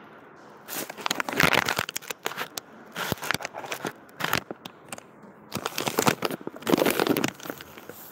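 Crinkling and clattering from kitchen items being handled close to the microphone. It comes in several short spells with brief pauses between them.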